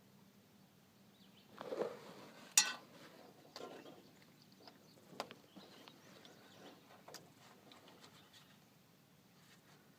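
Scattered clinks, taps and rustles of tools and parts being handled, with one sharp clink about two and a half seconds in the loudest.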